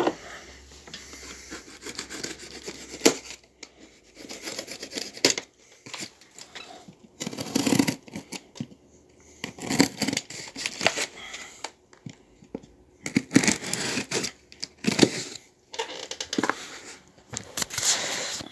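A utility knife slitting and tearing packing tape on a cardboard box, with the box being handled: irregular rasping strokes with short pauses between them.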